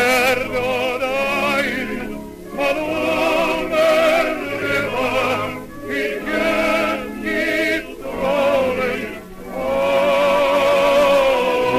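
Light opera singers with orchestra on a 1930s 78 rpm shellac record, singing phrases with a wide vibrato, then swelling into a long held closing chord about ten seconds in.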